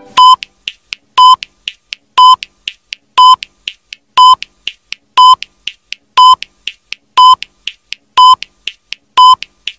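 Countdown timer sound effect: a short electronic beep once a second, ten in all, with faint ticks between the beeps.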